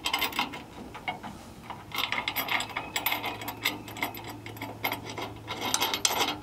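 Rapid metallic clicking in uneven runs as a nut is worked onto a bolt of a loader-bucket hook bracket. It thins out about a second in and picks up again about two seconds in.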